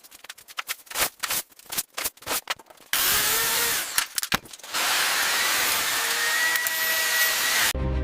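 Knocks and taps on wood for about three seconds, then a power tool running in two long runs with a short break between, with a faint steady whine; it cuts off suddenly near the end.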